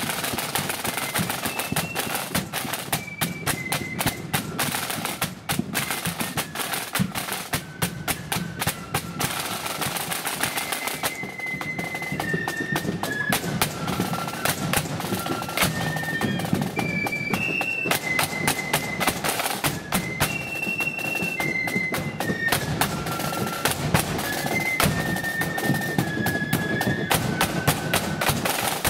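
Marching flute band playing a tune: a high flute melody moving from note to note over the rattle of several snare drums and the beat of a bass drum.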